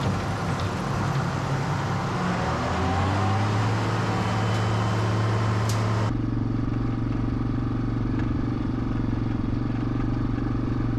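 Tractor engine running while backing equipment into a barn, its pitch shifting and then settling into a steady low drone. About halfway through, the sound cuts abruptly to a different steady engine drone, duller and without the high end.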